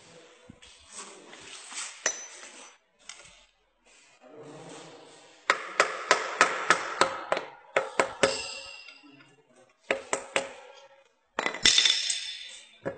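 Hammer gently tapping a screwdriver wedged under a cover on a small diesel engine, to loosen the cover from the engine body: a quick run of light metallic taps, about three a second, through the middle, with a few more taps later.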